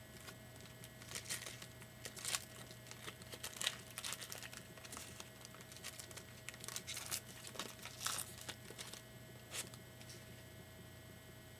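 Trading cards and their foil pack wrapper being handled: irregular crinkling and rustling, in short bursts for most of the stretch, over a steady electrical hum.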